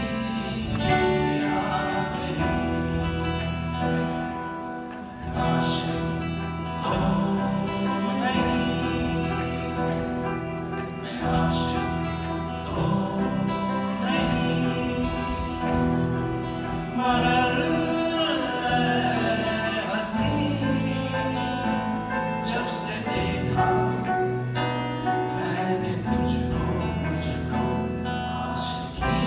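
Live band playing a song, with singing over acoustic guitar, bass guitar, tabla and keyboard.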